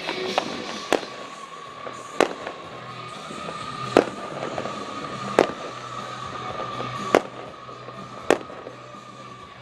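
Aerial fireworks bursting: about seven sharp bangs at uneven gaps of one to two seconds, the loudest about four seconds in. A faint steady tone runs underneath.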